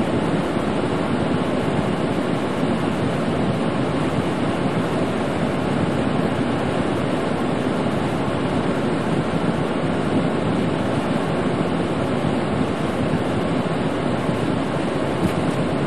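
Steady cab noise of a truck driving on a wet, snowy highway: tyres on slush and the engine, with the defroster fan blowing, all blended into one even hiss.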